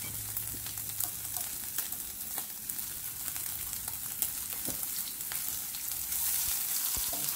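Diced pancetta sizzling and crackling in a hot nonstick frying pan with a little olive oil, a steady hiss dotted with small pops as its fat renders out.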